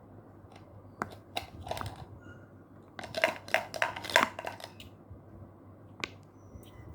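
A series of sharp, crisp pops: a few single pops in the first two seconds, a dense run of pops and crackles from about three to four and a half seconds in, and one last pop near the end.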